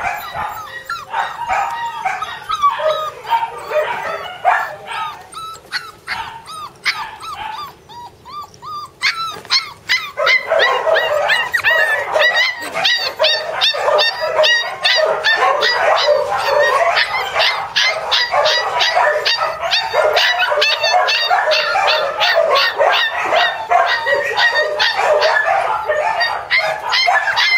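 Several border collie puppies barking in short, high-pitched calls that overlap one another. About ten seconds in, the calls become much denser and louder, a near-continuous din.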